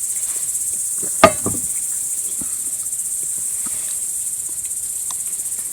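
Crickets chirring in a steady high trill, with one sharp knock a little over a second in.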